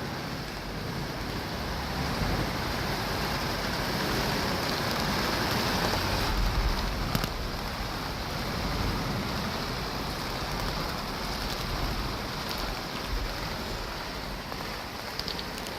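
Steady heavy rain with a low rolling rumble of thunder that swells to its loudest about six to seven seconds in, then eases.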